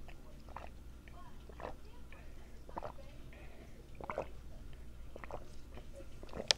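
Gulps of a drink swallowed straight from a plastic bottle, about six swallows roughly a second apart.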